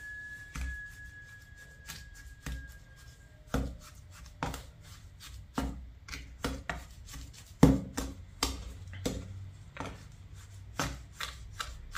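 Wet cement mix being worked into a plastic mold: a hand tool knocks and scrapes irregularly against the mold and container, about two knocks a second, with one louder knock near the middle.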